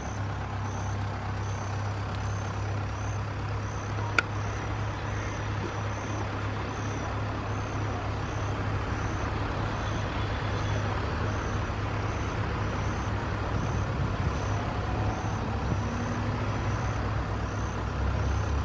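Distant jet engines of an Airbus A320 on final approach, a steady rumble growing slowly louder as it comes closer. A short sharp click about four seconds in.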